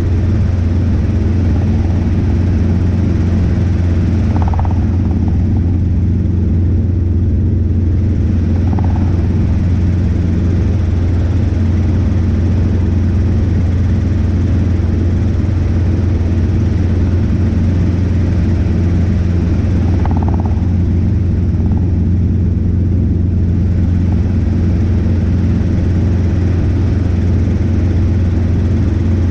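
Robinson R22 helicopter in cruise flight: a loud, steady drone of rotors and piston engine with a constant deep hum underneath.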